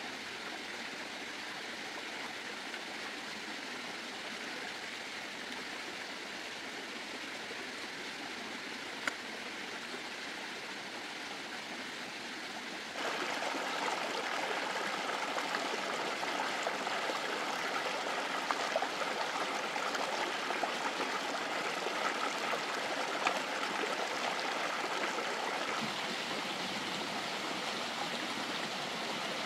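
Running water, a steady rush that becomes suddenly louder and brighter about thirteen seconds in, with a few faint clicks over it.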